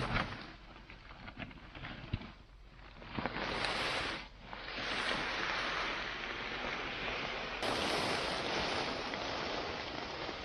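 A large bonfire burning: a rushing noise of flames and air that swells and ebbs in surges, with occasional sharp crackles and pops.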